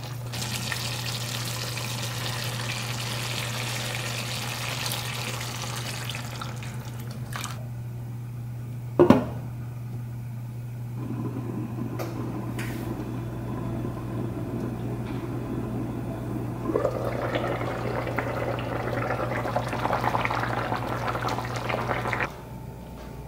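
Chicken curry cooking in a stainless pan: sizzling and simmering while being stirred with a plastic spatula, one sharp clack about nine seconds in, then a quieter simmer under a glass lid. From about seventeen seconds in, a louder bubbling of the coconut-milk sauce at a boil, over a steady low hum.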